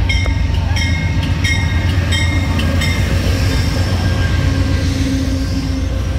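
A train passing close by, with a heavy steady rumble. Sharp ringing clicks come about twice a second for the first three seconds, then give way to a steadier rushing noise.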